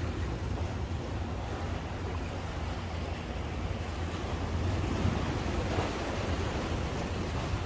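Steady wind buffeting the microphone over the sound of sea waves washing against the concrete tetrapods of a breakwater.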